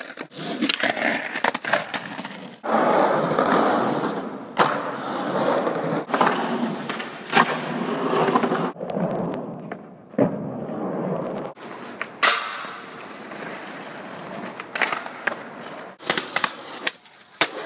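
Skateboard wheels rolling over concrete, broken by several sharp clacks of the board popping and landing.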